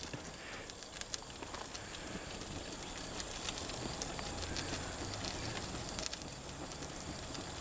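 Napalm burning in a can on top of a car engine: the flames make a steady hiss with scattered small crackles.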